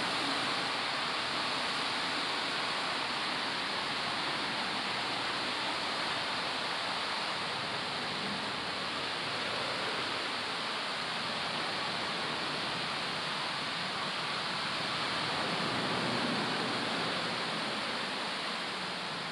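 SoftCare rollover car-wash gantry running over a car: a steady hiss of water spray and spinning brushes.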